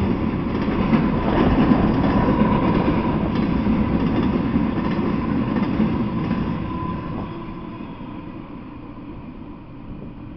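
Intermodal freight train rolling past: a steady rumble of steel wheels on rail with a thin steady tone over it. The sound fades away after about six seconds as the last cars go by.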